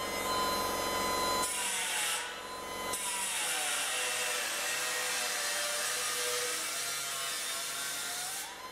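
Angle grinder grinding the edge of a sheet-steel floor pan panel. The motor whine drops in pitch as the disc bites into the metal about a second and a half in, stays lower for several seconds, and climbs back near the end as the load comes off.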